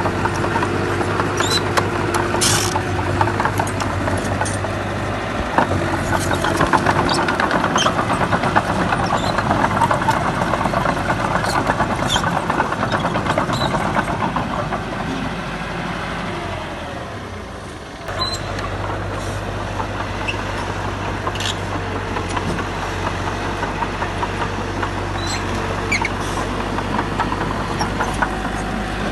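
Heavy diesel construction machine running, with scattered clanks and knocks on top. The level sags for a couple of seconds, then changes abruptly about eighteen seconds in.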